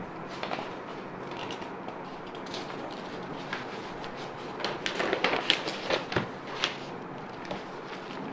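A page of a spiral-bound paper notebook being turned over and smoothed flat: paper rustling and crinkling, with a cluster of louder crisp rustles from about four and a half to seven seconds in.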